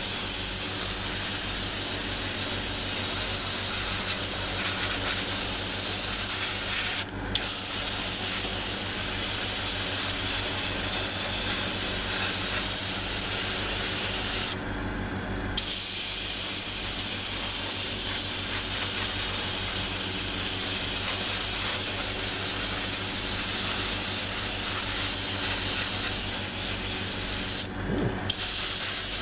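Airbrush spraying paint with a steady hiss over a low hum, the trigger released briefly about 7 s in, for about a second midway, and again near the end.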